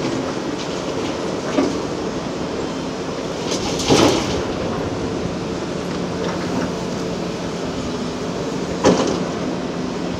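Large hydraulic excavator's diesel engine running steadily while digging hard rock, with three sharp knocks of the bucket on rock, the loudest about four seconds in.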